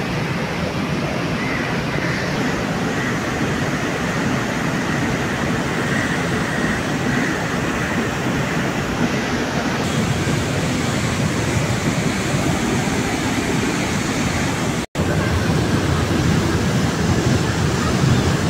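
Steady rushing of floodwater pouring from a dam's open spillway gates and racing down the river channel. The sound drops out for an instant about 15 seconds in, then carries on.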